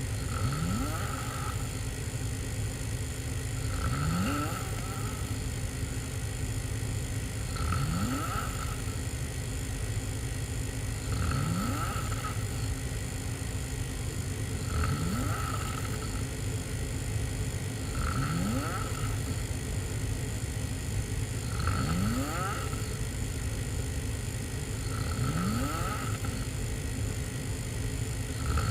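A person snoring hard, asleep on their back with mouth open. The snores come about every three and a half seconds, each rising in pitch as it goes, over a steady low rumble.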